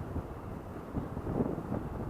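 Wind buffeting the microphone: a low, irregular rumble.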